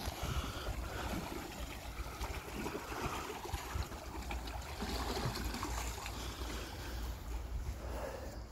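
Wind rumbling on the microphone over river water lapping against a rocky shore.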